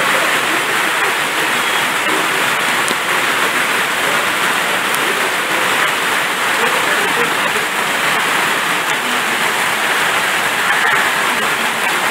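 A steady, loud rushing noise with no distinct pitch, even throughout, of the kind made by rain or running water.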